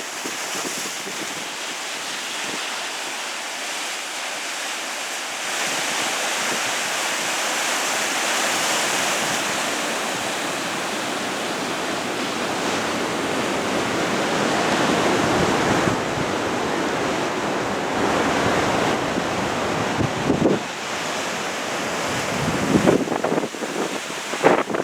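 Strong wind rushing over the microphone together with waves on the water, swelling and easing in gusts, with a few short buffets on the microphone near the end.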